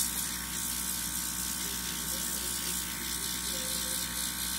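Small airbrush compressor running steadily: an even motor hum with the hiss of air through the airbrush.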